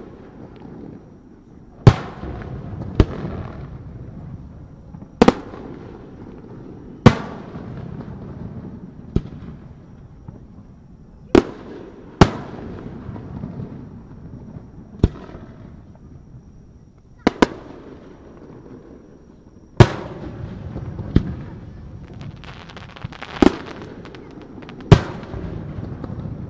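Aerial fireworks shells bursting one after another: about fourteen sharp bangs, one to three seconds apart, each trailing off in a fading rumble.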